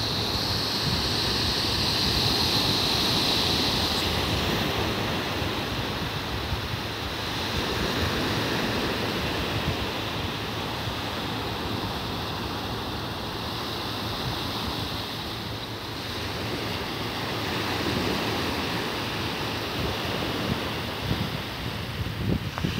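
Small surf breaking and washing up a sandy beach, a steady wash of noise, with wind buffeting the microphone in low gusts. A high hiss sits over the first four seconds or so.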